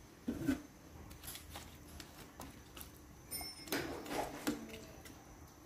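Light clinks and knocks of a metal ladle in an aluminium cooking pot, a single knock about half a second in and a cluster of them about four seconds in.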